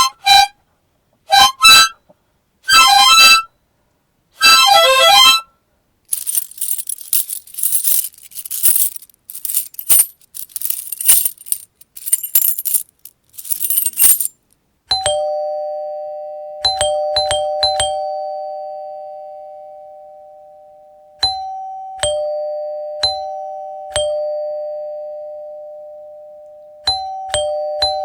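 Four short harmonica chords, then a bunch of keys jingling for about eight seconds, then a two-tone ding-dong doorbell chime ringing over and over, a high note falling to a lower one, sometimes pressed several times in quick succession.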